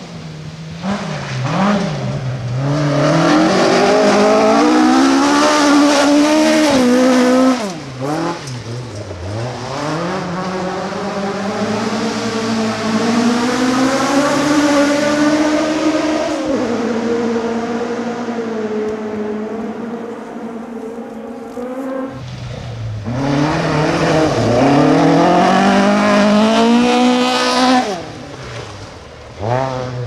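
Rally car engines at full throttle, each rising in pitch through the gears with sudden lifts off the throttle in between. One car fades away a little over 20 seconds in and another comes through afterwards.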